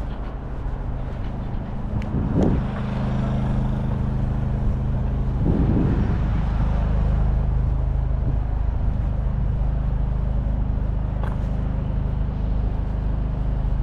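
A vehicle engine running steadily nearby, a low even hum, with two brief rushes of noise about two and a half and six seconds in.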